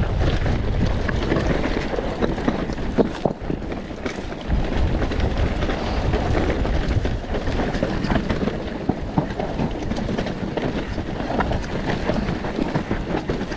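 Wind noise on the microphone with the rattling and knocking of a bike ridden over a rough off-road trail.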